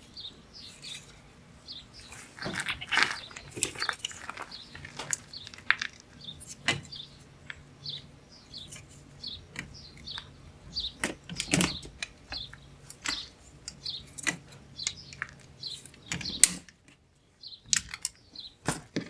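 Plastic speaker adapter ring being worked with pliers, its unneeded mounting tabs cut and snapped off: an irregular run of clicks and sharp snaps with short high squeaks of plastic, the loudest snaps about 11 and 16 seconds in.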